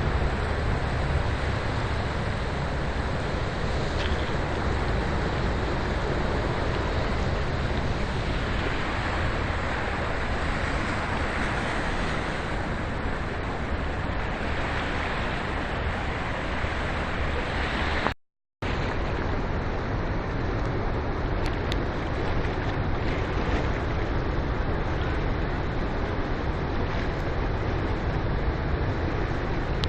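Rhine Falls waterfall with a steady, rushing roar of falling water. The sound cuts out completely for a moment about eighteen seconds in.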